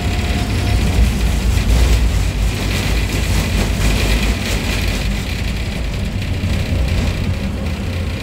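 MUV tram running along the track, heard from inside the passenger car: a steady low rumble of wheels and running gear, with a faint whine coming and going.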